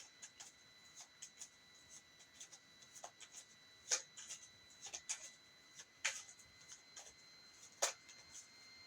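Tarot cards being handled on a table: faint scattered rustles and small clicks, with sharper taps about four seconds in, at six seconds and near eight seconds.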